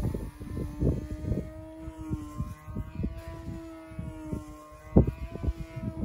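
F2B control-line aerobatic model airplane's motor and propeller droning steadily, the pitch drifting slightly up and down as the plane circles the pilot. Irregular thumps of gusting wind buffet the microphone, the loudest about five seconds in.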